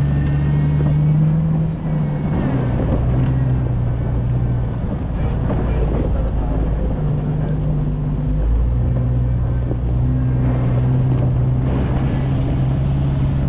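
Jeep engine running as it drives along a dirt trail, its pitch dropping and rising a few times as the speed and gears change, with rough rumbling road noise and some wind on the microphone.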